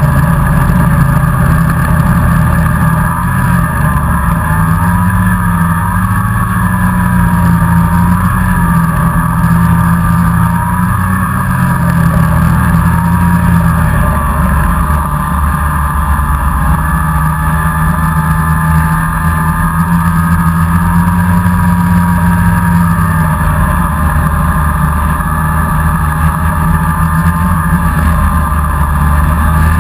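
Snowmobile engine running steadily at trail speed, heard close up from the machine being ridden; its pitch rises and falls a little with the throttle.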